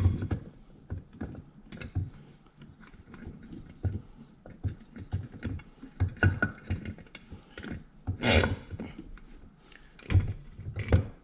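Metal-on-metal clinking and knocking as a cast tail housing is worked by hand onto a manual transmission's mainshaft and shift rails: scattered light clicks and knocks, with a louder, longer burst about eight seconds in and a few sharper knocks near the end.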